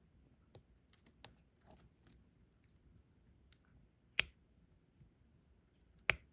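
Light clicks and taps of a diamond painting pen placing small resin drills onto the adhesive canvas, with two sharper clicks about four and six seconds in.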